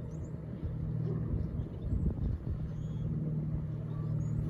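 A steady low motor-like hum, with an uneven rumble from about half a second to two and a half seconds in.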